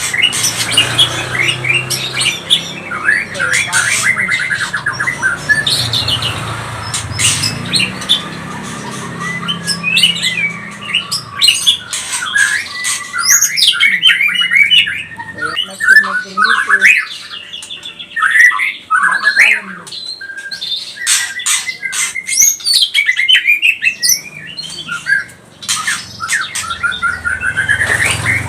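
White-rumped shama (murai batu) singing in a rapid, agitated run of whistles mixed with harsh rattling calls, the aggressive 'emosi' song used as a lure to provoke other shamas into singing.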